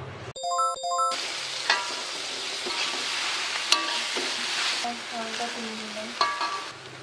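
Instant noodles and beef chunks sizzling as they are stir-fried in a pot, with a metal spatula clinking and scraping against the pot a few times. A short two-note chime sounds just before the sizzling starts.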